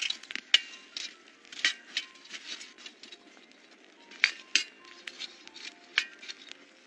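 Irregular sharp clicks and clinks from a wood campfire and the metal grill and plate set over it, a few loud ones standing out, over faint background music.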